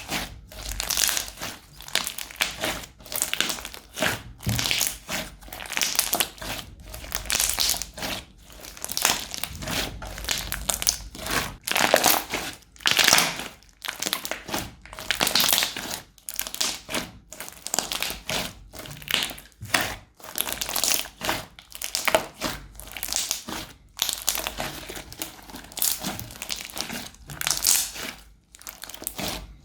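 Hands squeezing and kneading crunchy slime, giving irregular crackling crunches about once or twice a second.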